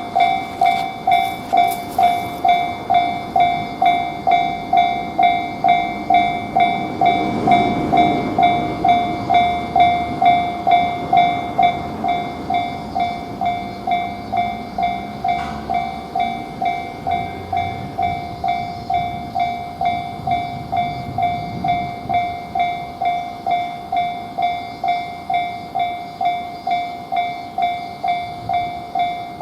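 Japanese railway level-crossing warning bell starts suddenly and rings on in a steady, fast, repeating clang. A train rumbles past through the middle and then eases off while the bell keeps ringing.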